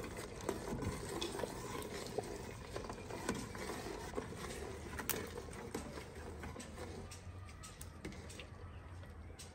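Metal ladle stirring and scraping through simmering nihari stew in an open aluminium pressure cooker, with a few sharp clinks of the ladle against the pot over the bubbling. The sound grows gradually quieter toward the end.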